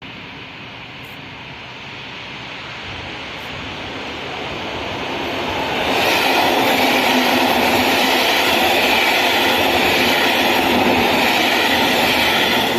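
A train approaching, growing steadily louder for about six seconds, then passing close by with a loud, steady rush of wheels on rail.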